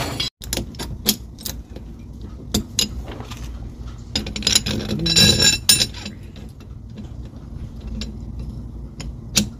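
Metal parts of a Strut Pro cutless bearing puller clicking and clinking as they are fitted around a boat's propeller shaft and strut, with a cluster of ringing metal clinks about halfway through.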